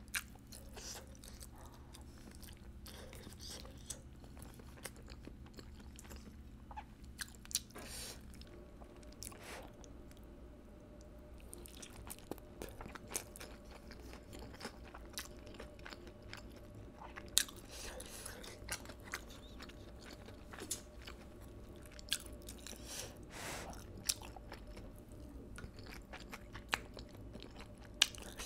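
A person chewing and biting food, with many scattered short mouth clicks, over a faint steady low hum.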